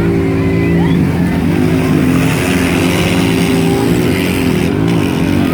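ATV and motorcycle engines running, their pitch dipping and rising a few times as the throttle is eased and opened.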